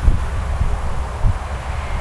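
Wind buffeting the microphone in uneven gusts, a low rumble under a steady faint hiss.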